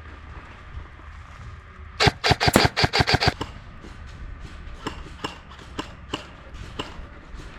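Airsoft gun firing a rapid string of about ten shots in under a second and a half, followed by scattered, fainter single shots.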